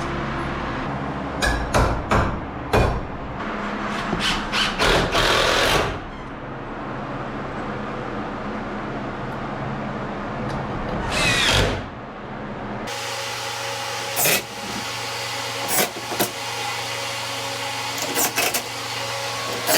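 Power drill driving screws in a series of short runs, a few longer ones early and several brief ones later.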